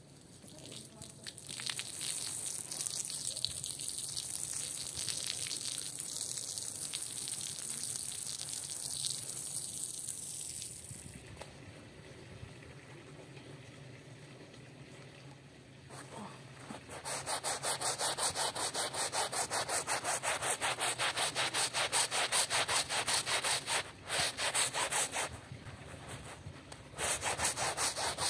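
Hand brush scrubbing a wet, soapy rug, fast back-and-forth strokes about four or five a second, starting about two-thirds of the way in with a short pause near the end. Before that, a steady hiss for the first ten seconds or so.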